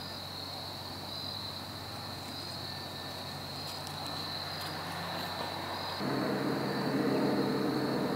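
Evening chorus of crickets, a steady high-pitched trill. About six seconds in, a low steady rumble comes in suddenly underneath it.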